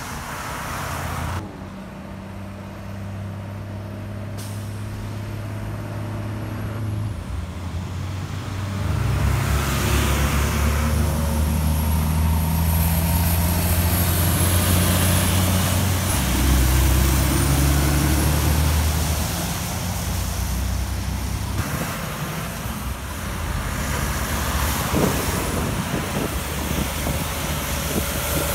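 Heavy diesel trucks driving past on a wet road: a deep engine drone with tyre hiss, in a string of short clips that cut from one to the next. The drone is loudest in the middle stretch, with a faint high whine over it.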